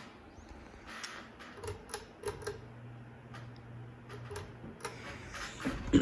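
Hampton Bay Cameron II Plus ceiling fan running on low speed: a faint steady motor hum with scattered light ticks and clicks, then a louder clatter near the end as the metal pull chain is worked to change the speed.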